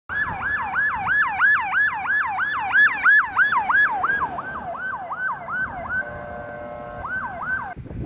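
Fire truck siren yelping fast, about three to four sweeps a second, slowing a little midway. It holds one steady tone for about a second near the end, then sweeps twice more and cuts off.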